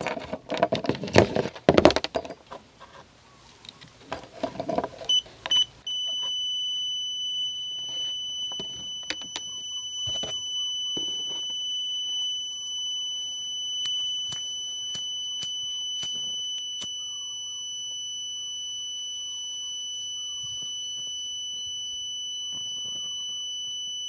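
Handling clicks and rattles as multimeter test leads are clipped onto a furnace high limit switch. About five seconds in, a UEi DL389B clamp meter's continuity beeper gives two short beeps and then holds one steady high beep, which signals continuity: the limit switch is still closed and has not tripped. A few sharp clicks sound over the tone.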